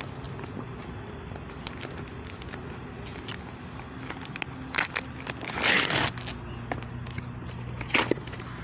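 Cardboard shipping box being handled and pried open: scattered scratches and taps on the cardboard, a louder rustling scrape lasting about half a second a little past the middle, and a sharp snap near the end.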